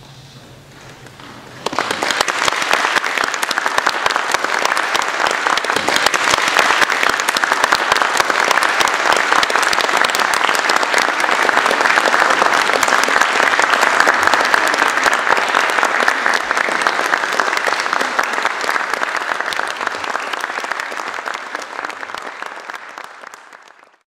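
Audience applauding. The clapping breaks out suddenly a couple of seconds in, keeps up steadily and dies away near the end.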